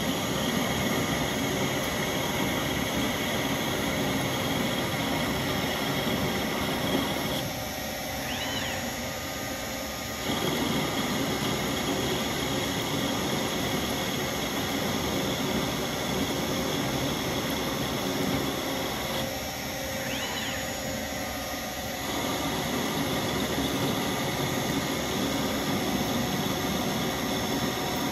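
CNC lathe (a Shopmaster Mill Turn in lathe mode) running a part program, with the spindle and servo drives giving a steady machine noise and whine. Twice, about 8 and 20 seconds in, the noise drops for a couple of seconds and a brief high chirp sounds.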